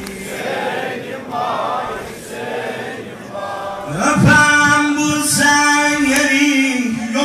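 Ashura mourning lament (nauha): a crowd of male mourners chanting together. From about four seconds in, the reciter's amplified voice comes in over a loudspeaker, holding a long sung note.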